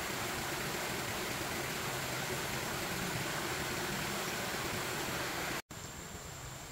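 Steady rushing noise with no distinct events, like running water. It cuts off abruptly about five and a half seconds in, then carries on as a quieter hiss.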